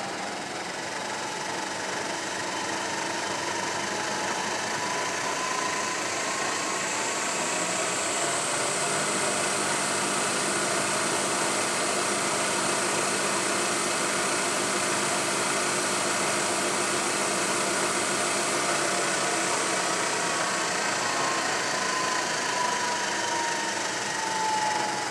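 Willis 1250 Microcut milling machine running under its 5 hp spindle motor with no cut being taken: a steady machine hum and whine. The whine rises slightly in pitch in the first couple of seconds and falls over the last few seconds, as the spindle speed changes.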